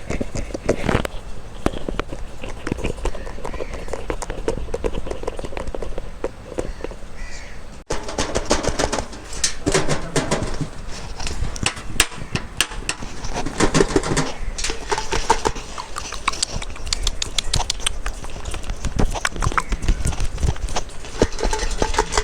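Close-miked ASMR trigger sounds: a dense, fast run of clicks and crackles, broken by a sudden cut about eight seconds in.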